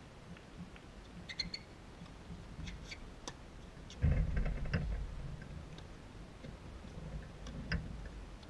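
Tennis rally heard from a distance on an outdoor hard court: scattered sharp pops of the ball off rackets and court, a few short squeaks, and wind rumbling on the microphone from about halfway through.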